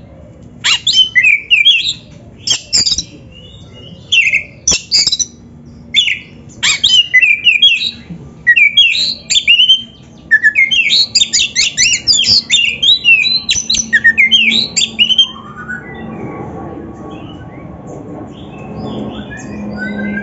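Oriental magpie-robin (kacer) singing loud bursts of fast, varied high notes with short pauses between them. About three-quarters of the way through, the song gives way to a softer sound with a low steady hum and rising gliding tones.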